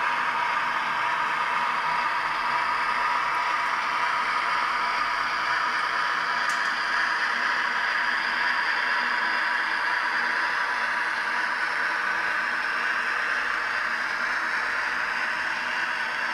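Digital sound decoder of an Acme HO-scale FS E444R model electric locomotive playing its running sound at the slowest speed step: a steady electric whir and hiss through the model's small speaker, easing slightly near the end as the locomotive moves off.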